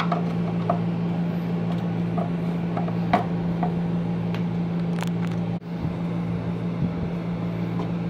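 Small Phillips screwdriver turning screws out of a plastic vacuum-cleaner motor housing: scattered light clicks and scrapes over a steady low background hum.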